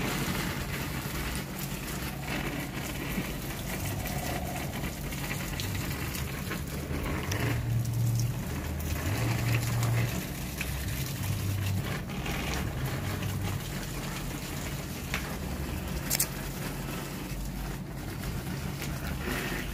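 Water spraying from a garden hose onto potted plants, pattering on the leaves and soil, over a steady low rumble.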